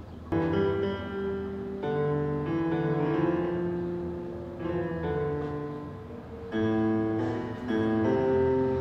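Background music: a piano playing slow chords, a new chord struck every second or two and left to ring and fade.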